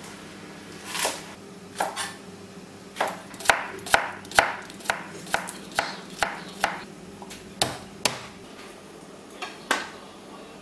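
Kitchen knife chopping vegetables on a cutting board: a run of sharp, irregular strokes, coming quickest about halfway through, with a few slower cuts near the end.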